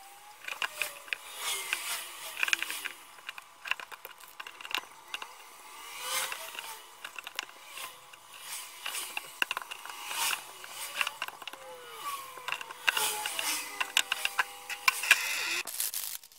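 Kitchen knife cutting raw chicken on a plastic cutting board: irregular knocks and scrapes of the blade against the board as the meat is sliced into pieces.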